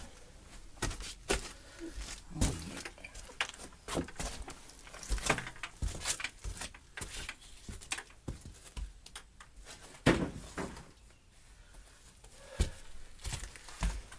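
Irregular knocks, clicks and scrapes of a timber arch former being worked loose and taken down from under a stone arch, with one louder knock about ten seconds in.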